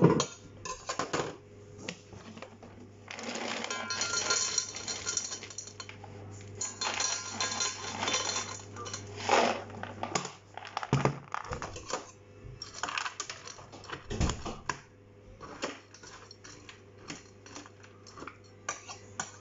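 Dry dog kibble rattling into stainless steel bowls in two pours, then stirred by hand, the pellets clicking and clattering against the metal.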